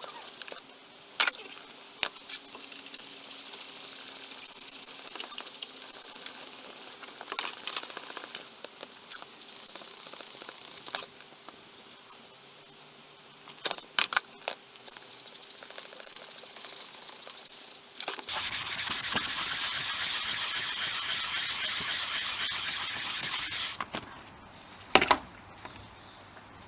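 Hand sanding of a motorcycle's painted plastic panel with wet 320-grit wet and dry paper: long spells of rapid scratchy rubbing, stopping for a few seconds at a time, with a few sharp clicks.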